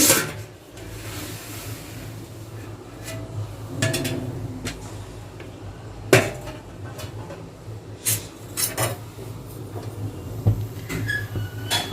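Metal pot and lid knocking and clinking as the biryani pot is uncovered after its dum steaming, with a handful of sharp knocks a second or two apart over a low steady hum.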